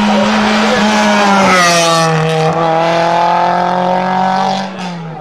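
A Renault Clio rally car's engine running hard at high revs as the car goes past. It is loudest about a second and a half in, then drops in pitch and fades as the car pulls away.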